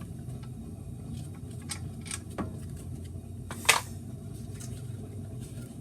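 A steady low hum with scattered light clicks and one sharper click about three and a half seconds in.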